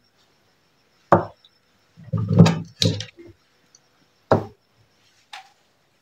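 Handling knocks and thuds as a ceiling fan capacitor and tools are worked and set down on the work surface: one knock about a second in, a quick cluster of them around two to three seconds, another past four seconds and a faint one near the end.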